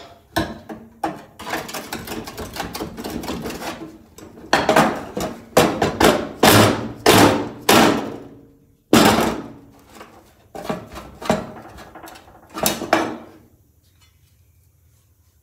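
A rusty spot-welded steel plate from a Toyota Hilux cab being worked off with hand tools after its spot welds were drilled out. A few seconds of chisel prying and scraping on the metal come first, then a dozen or so sharp mallet blows on the sheet steel.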